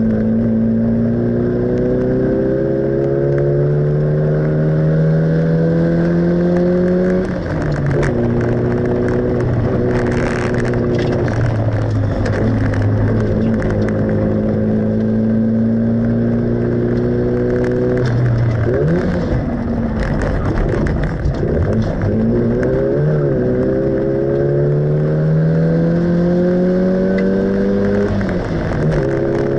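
Small car's engine heard from inside the cabin while driven hard on a race track. It pulls up through the revs and drops suddenly in pitch at the gear changes, with a lift and quick blips of the throttle near the middle.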